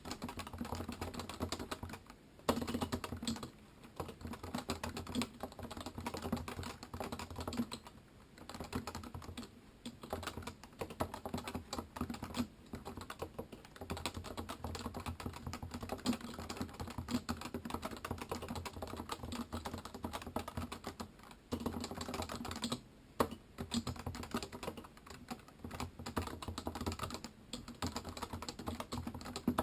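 Typing on a Topre Realforce 86U keyboard, whose keys have Topre electrocapacitive switches: a steady stream of keystrokes at an unhurried pace, broken by a few short pauses.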